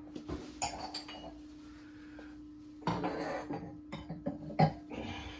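Scattered metallic clinks and knocks as the over-the-range microwave and its mounting parts are handled, over a steady low hum.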